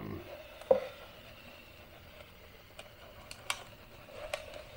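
Hot-knife foam cutter slicing through the expanded polystyrene foam of an ICF block: quiet, with one sharp click just under a second in and a few faint ticks and crackles after it.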